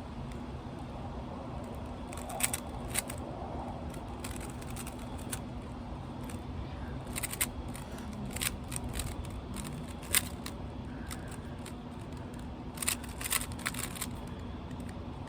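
Rubik's cube being turned during a speedsolve: quick plastic clicks and clacks in several short flurries, over steady wind noise on the microphone.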